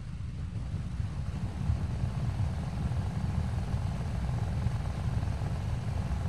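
Wind from an electric fan buffeting a Boya BY-BM6040 shotgun microphone fitted with its foam windshield: a steady low rumble with a fainter hiss above it. It grows a little louder over the first couple of seconds.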